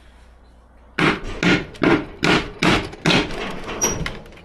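Hammer striking big nails to bash them out of pallet wood: a quick run of sharp blows, about two or three a second, starting about a second in.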